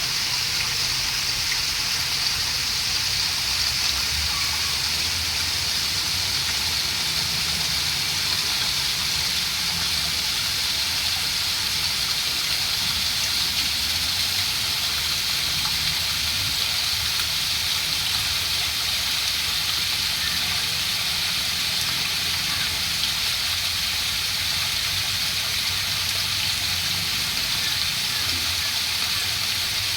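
Running water: a steady, even rush with no breaks or changes.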